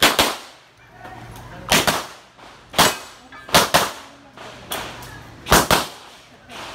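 Gunshots fired in quick pairs, double taps, with a pair or single shot every second or so and a short echo after each.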